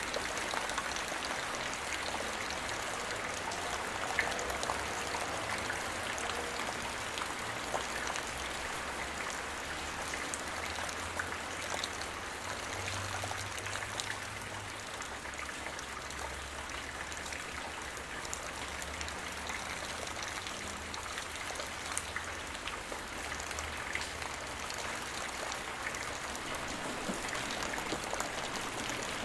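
Steady rain falling, with many separate drops ticking on a surface over an even hiss.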